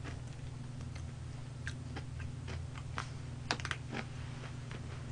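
Faint, scattered small clicks and light handling noises over a steady low hum.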